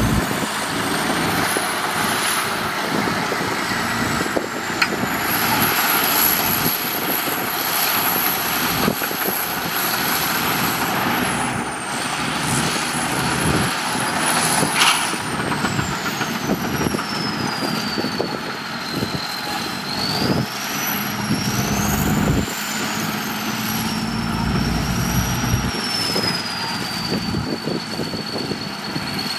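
Heavy diesel earthmoving machinery running and working, with a steady mechanical din and engine drone. A high whine slides down in pitch and back up through the second half.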